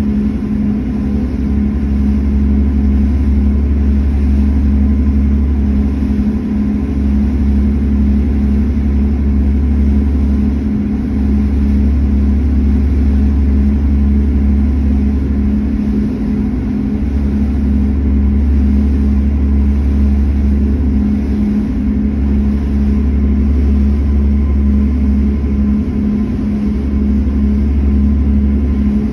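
A passenger ferry's engines running steadily underway, heard from the open deck. There is a deep rumble that swells and dips, with an evenly pulsing hum over it.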